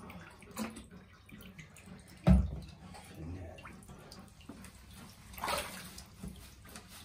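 Bath water sloshing and dripping in a tub as a wet Alaskan Malamute is washed by hand, with one sharp thump a little over two seconds in and a brief splash about five and a half seconds in.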